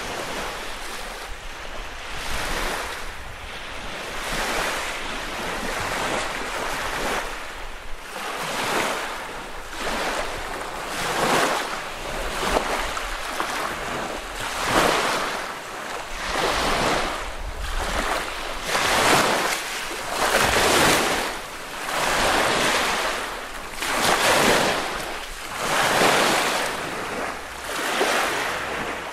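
Small lake waves washing onto the beach one after another, each rising and falling about every one and a half to two seconds, growing stronger about ten seconds in.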